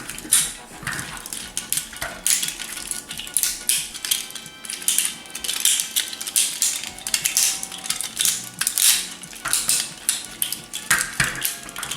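Hard plastic parts of a G1 Transformers Jetfire toy clicking, knocking and rattling in quick, irregular succession as the toy is handled and transformed.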